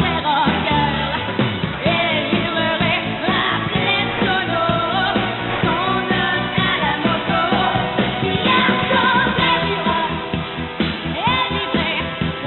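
A pop song: a voice singing over instrumental accompaniment.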